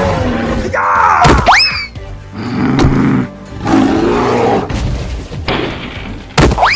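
Dinosaur roars, several rough surges in a row, over background music. A quick rising whistle-like sweep cuts in about a second and a half in and again near the end.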